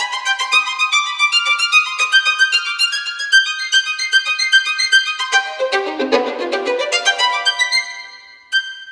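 Background music: a fast run of short, quick notes that fades out near the end.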